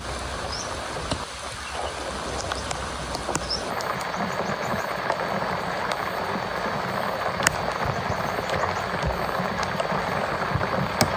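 Heavy rain falling steadily, an even hiss with a few sharp taps. It gets a little louder about four seconds in.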